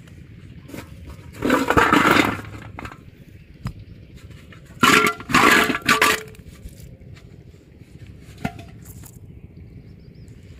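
Water and apple snails tipped out of an aluminium basin onto the ground, making a sloshing, splashing rush with shells clattering against the metal and each other. It comes in two loud bursts, about a second and a half in and about five seconds in.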